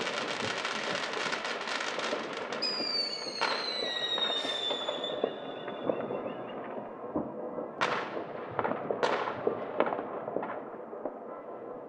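New Year's Eve fireworks and firecrackers going off across city streets: dense rapid crackling at first, then a whistling firework sliding slowly down in pitch for about two seconds, then scattered separate bangs, two of them louder and about a second apart.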